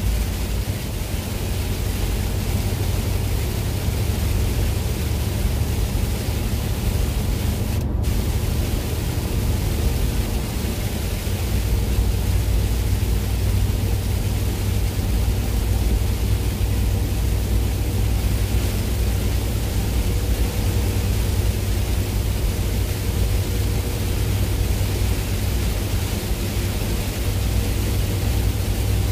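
Steady road and engine noise inside a moving vehicle's cab: a low drone with a hiss over it, broken by a brief dropout about eight seconds in.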